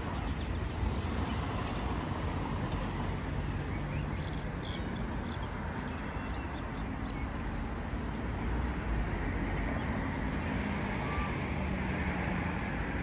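Outdoor street ambience: wind buffeting the phone's microphone as a heavy, uneven rumble, over the steady hum of road traffic. A few short, faint high chirps from birds about four to five seconds in.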